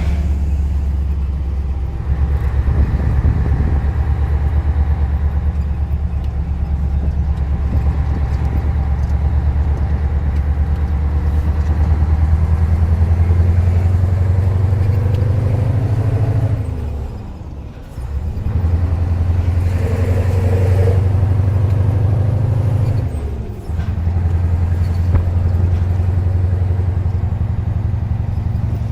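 Scania 143 truck's V8 diesel with an open, straight-piped exhaust, running with a low, fast-pulsing engine note. Twice the note drops away briefly, its pitch dipping, and then picks up again.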